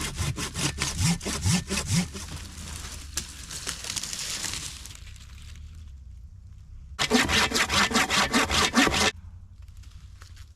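Handsaw cutting through a pitch pine pole in quick, even back-and-forth strokes. A first run of strokes fades out, and after a pause a second, louder run stops abruptly near the end.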